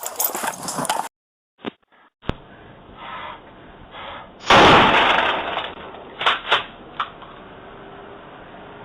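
Through a doorbell camera's tinny microphone, a loud sudden bang with a decaying tail of about a second and a half, followed by three sharper cracks in quick succession, over a low steady hiss.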